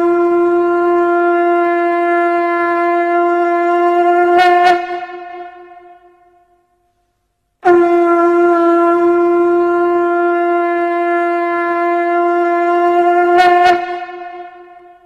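Conch shell blown in long, steady blasts on one note. The first breaks off about five seconds in and fades away; after a short silence a second identical blast starts just past halfway and fades near the end.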